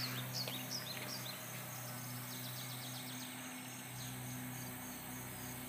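Quiet outdoor ambience: small birds chirping in quick runs of short, high, falling notes, over a steady low hum.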